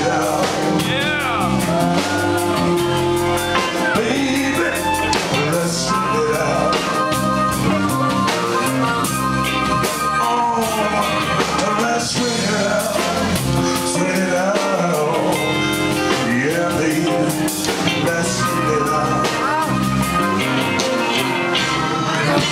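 Live blues band playing: electric guitars, electric bass, harmonica and drums, with a singing voice.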